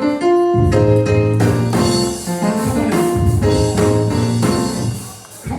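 Live church band music: sustained keyboard chords over bass and drums.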